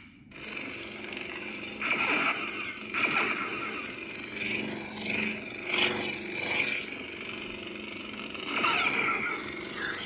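Lightsaber sound font for Kylo Ren playing from a Proffie sound board through the hilt's small speaker: the crackling blade hum, with several louder swing swells about two, three, six and nine seconds in.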